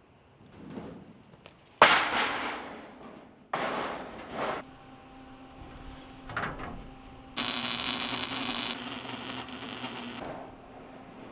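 A loud clang of a large metal sheet being handled about two seconds in, then another clatter. Near the end, an electric welding arc crackles for about three seconds over a faint steady hum.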